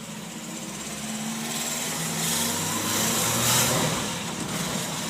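Opel Kadett B's tuned 1.2 S OHV four-cylinder engine running, revs rising to a peak about three and a half seconds in and then falling back. It carries the strange noise that the owner fears is a failing bearing.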